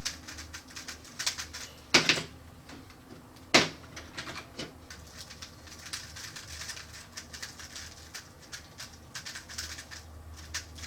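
Plastic 3x3 speedcube being turned by hand: a run of quick clicks and clacks as the layers turn, with two sharper snaps about two seconds and three and a half seconds in.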